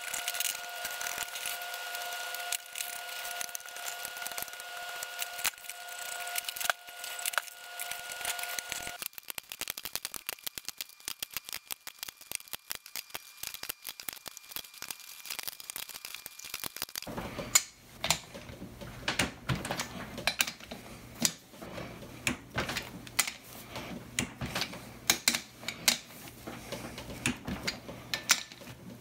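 Small metallic clicks and rattles of rocker box nuts being threaded onto their studs on a Shovelhead cylinder head, followed by sharper irregular clicks of a socket wrench snugging the nuts down over the last third. A faint steady high whine sits under the first third.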